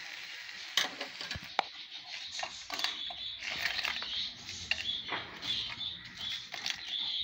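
Clinks, knocks and scrapes of a glass bowl against a steel mixer-grinder jar as fried ingredients are tipped in, with short high chirps repeating through the second half.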